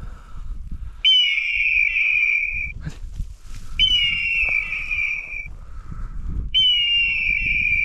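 A pointing dog's beeper collar in point mode sounds three times, about every 2.7 seconds: each call is a long, high electronic tone that opens with a quick upward chirp and then holds steady. The repeating signal marks that the dog is standing motionless on point over quail.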